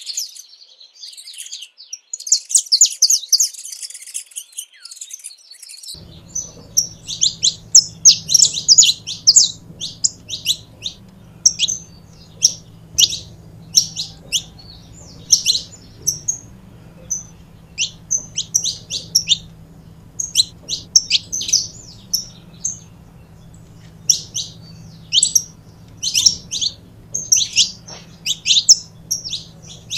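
Saffron finch singing: quick runs of high, sharp chirps in short phrases, repeated every second or two.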